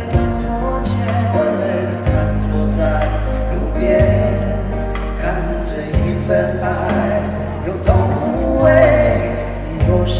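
Live pop ballad with a man singing into a microphone over a backing band, the bass notes changing every second or two.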